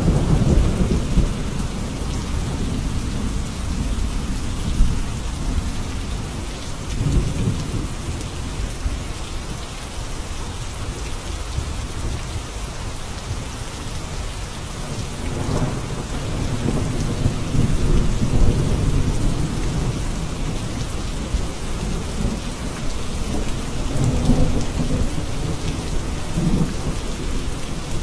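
Steady heavy rain hissing, with low rolling thunder that swells and fades several times.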